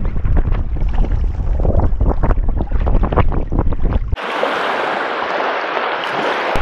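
Gusty wind buffeting the microphone over water splashing against a sailing sea kayak's hull. About four seconds in, it cuts to a steady hiss of small waves washing up a pebble beach.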